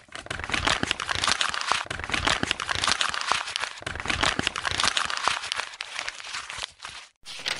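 Intro sound effect: a dense crackle of many sharp clicks with low thumps underneath. It thins out after about five seconds and cuts off sharply just before the end.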